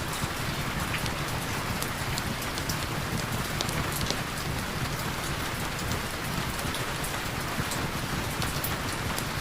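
Heavy rain falling steadily, a dense even hiss with scattered sharp drop ticks.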